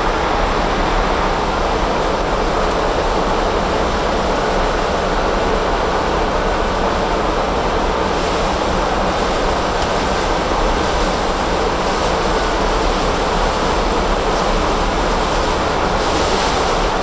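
Steady rushing noise inside the flight deck of an Airbus A300-600 in cruise flight. It holds at one even level throughout.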